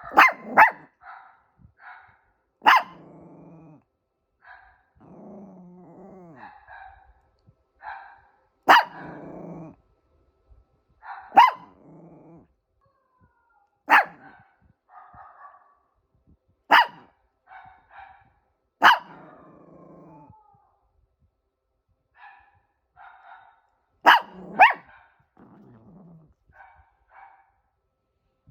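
A toy poodle and sound-effect dog voices trading barks: single sharp barks every couple of seconds, with low grumbling growls lasting a second or two after several of them and short yips between.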